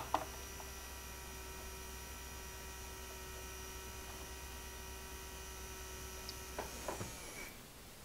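Small DC motor of a cordless rotary multitool running unloaded on 7.4 V from a bench power supply: a steady hum with a thin high whine, which stops about seven seconds in. The motor is so weak that it can be stopped easily by hand, which should not be.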